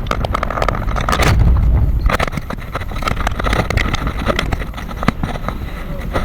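A car driving, heard from inside: a steady low road rumble that swells for a moment about a second in, with frequent small knocks and rattles.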